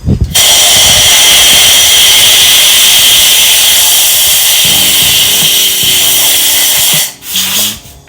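A long, loud, steady hiss of compressed air from a blow gun, lasting about seven seconds, then a short second blast near the end, blowing metal shavings out of the freshly tapped head-stud hole in the engine block.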